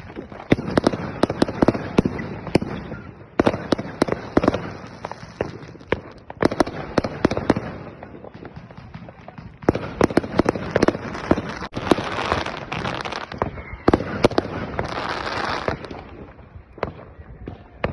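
New Year's Eve fireworks and firecrackers going off: volleys of sharp bangs in clusters a few seconds long, with two longer spells of dense crackling in the second half.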